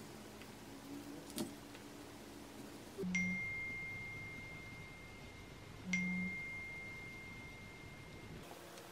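A chime struck twice, about three seconds apart, the first about three seconds in; each strike is a single high bell-like tone that rings on and slowly fades.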